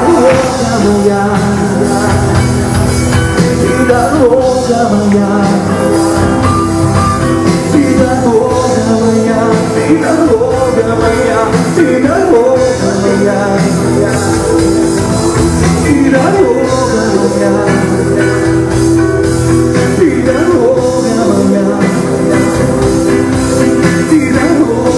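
Loud rock music from a band with electric guitars, playing steadily without a break.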